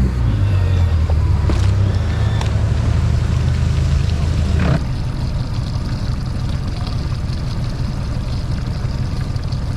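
Bass boat's outboard motor running under way, with wind and water rushing past. The engine note is strong at first and drops in level about five seconds in.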